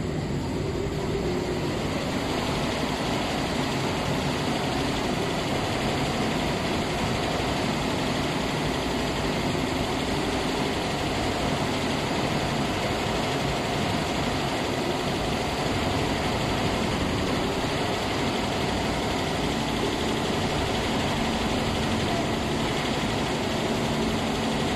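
Laser cutting machine running as its gantry head cuts glove shapes from quilted fabric: a steady, even machine noise with a low hum.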